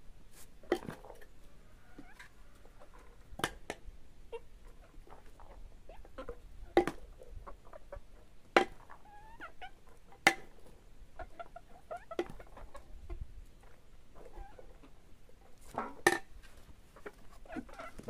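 A metal spoon scraping crushed boiled soybeans out of a wooden mortar, with about six sharp knocks of the spoon against the wood or pot. Hens cluck softly in between.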